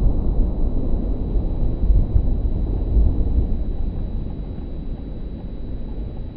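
Deep, low rumble from the burst of a six-inch aerial firework shell, slowed down in slow-motion playback, gradually fading over the last couple of seconds.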